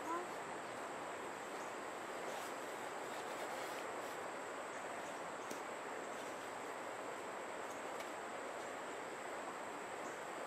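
Steady outdoor ambience: an even, high-pitched insect drone over a steady background hiss, with one short rising squeak right at the start.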